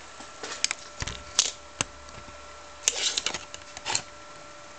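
Light clicks and clatters in irregular clusters, about a second in and again around three to four seconds in, over a faint steady hum.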